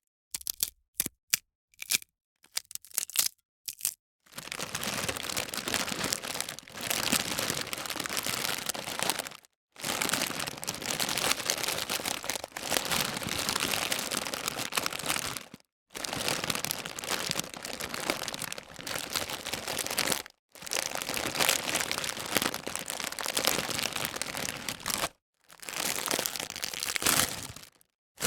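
Potato chip bag being handled, crinkling and crackling. A few short separate crackles come first, then a run of dense crinkling takes, each several seconds long with short pauses between them.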